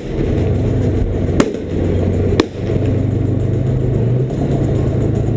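Tank engine running with a steady low drone as the tank moves forward, with three sharp cracks about a second apart in the first two and a half seconds.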